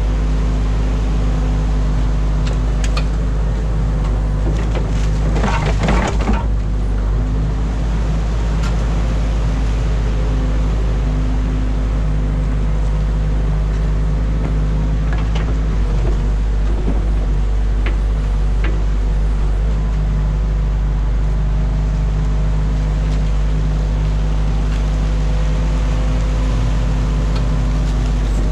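Hydraulic excavator's diesel engine running steadily under load, heard from inside the operator's cab, as the bucket digs out and swings a load of beaver-dam mud and sticks. A burst of knocks and scraping about five to six seconds in, with a few single clicks later.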